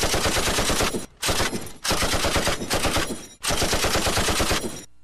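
Automatic gunfire sound effect: four bursts of rapid machine-gun fire with short breaks between them.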